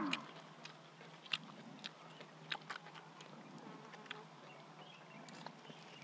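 Fresh lettuce leaves crinkling and tearing in the hands, a string of soft scattered crackles and clicks, over a faint steady low buzz.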